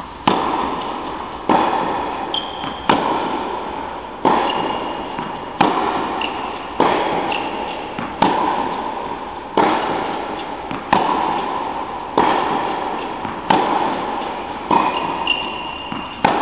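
Tennis rally: ball struck by rackets, a sharp hit a little over a second apart, each ringing out in the echo of an indoor tennis hall, with a few short high squeaks between hits.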